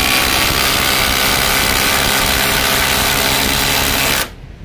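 Two cordless impact drivers, a Flex 24V and a Milwaukee M18 Fuel Gen 3 2853-20, both set to mode 3 and hammering at once as they drive 8-inch, 3/8-inch lag bolts into wood. The hammering stops abruptly about four seconds in as the bolts are driven.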